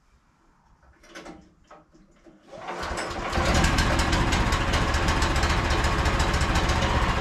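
Frontier OS27 sawmill's engine starting after a couple of weeks unused: it catches about two and a half seconds in, picks up, and settles into steady running with a fast even beat.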